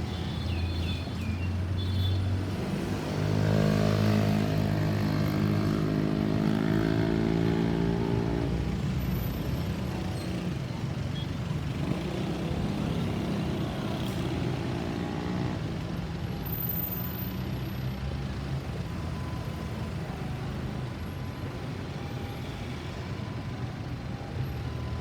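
Road traffic passing, with a heavy vehicle's engine drone loudest from about three to eight seconds in and a second vehicle passing a few seconds later.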